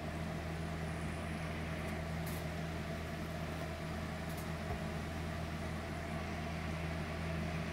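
A steady low hum with an even hiss over it, unchanging throughout, with two faint clicks about two and four and a half seconds in.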